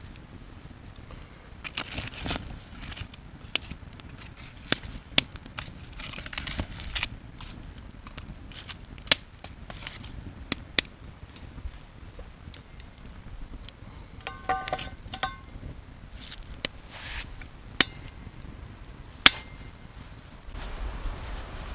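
Wood campfire crackling, with frequent sharp pops and snaps at irregular intervals.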